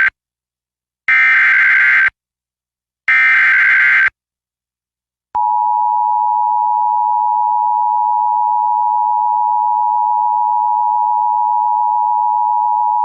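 Emergency Alert System tones: the end of one digital SAME header burst, then two more harsh, buzzy data bursts about a second long each, a second apart. About five seconds in, the steady two-tone EAS attention signal starts and holds through the rest, announcing a severe thunderstorm warning.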